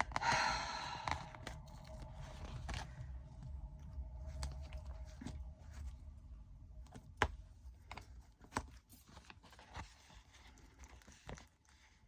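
Small plastic bags of diamond-painting drills being handled and sorted: a rustle at the start, then scattered light crinkles and clicks.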